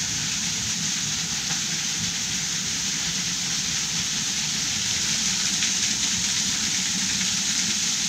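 Waterfall running strongly, a steady hiss of falling and splashing water.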